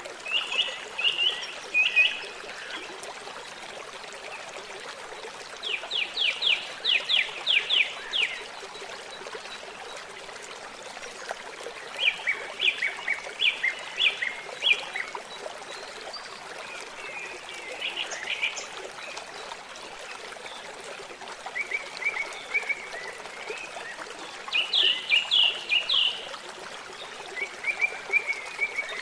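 Small songbirds singing short, rapid phrases every few seconds, over a steady trickle of running water. The loudest phrases are quick runs of notes about six seconds in and again near the end.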